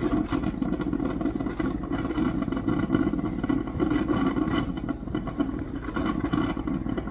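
Vehicle engine idling steadily, an even, unbroken running sound.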